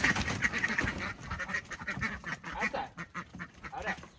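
A small flock of Cayuga ducks quacking over and over in quick succession, loudest in the first second, as they are being driven out of their coop.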